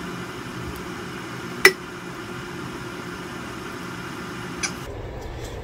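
A metal can of crushed tomatoes clinking once sharply against a glass casserole dish, with a short ring, a little under two seconds in, and more lightly again near the end, as thick sauce is coaxed out of the can. A steady hiss of background noise runs underneath and cuts off shortly before the end.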